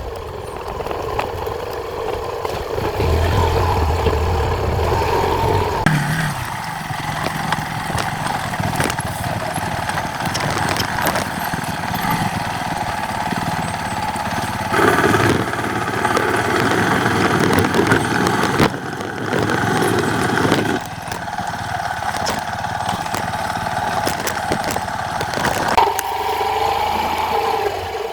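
Small motorcycle engine running as it is ridden, its note shifting up and down a few times, about six, fifteen, twenty-one and twenty-six seconds in, as the throttle changes on a steep, rough path.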